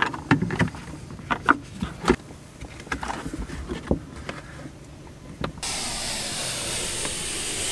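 Hands fitting a clip-on digital mirror over a car's rear-view mirror: scattered plastic clicks and taps. About five and a half seconds in, a steady hiss starts abruptly.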